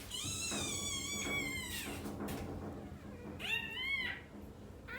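Newborn American bully puppy crying: one long, high-pitched cry of about two seconds, then a shorter cry that rises and falls about three and a half seconds in.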